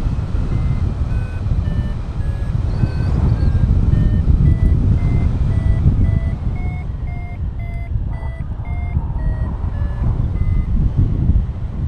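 Paragliding variometer beeping in short tones, about two a second, over steady wind rushing past the microphone. The pitch wanders up and down, is highest midway and drops near the end. The beeping signals the glider climbing in lift.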